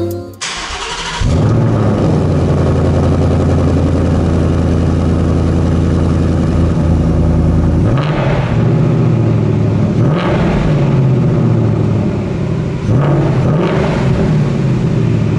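Ford Mustang Bullitt's 5.0-litre V8 starting, heard at its quad tailpipes. It catches about a second in and settles into a loud, steady idle. Then it is revved briefly three times in the second half.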